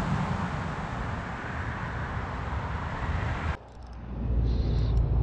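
Steady outdoor background noise without distinct events. About three and a half seconds in it changes abruptly to a low wind rumble on the microphone, with a faint whirr as a spinning reel's handle is wound.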